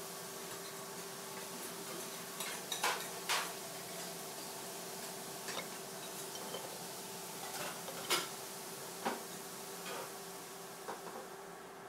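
A metal fork clinking against a ceramic plate several times, each a short sharp tap, over a steady low hum.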